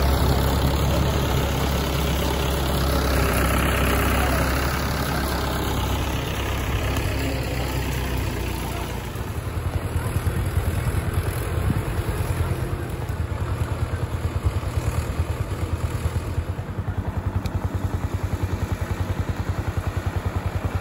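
Mahindra 575 DI tractor's four-cylinder diesel engine running as it pulls a heavily loaded sugarcane trailer. From about nine seconds in, its exhaust is heard as an even, pulsing beat.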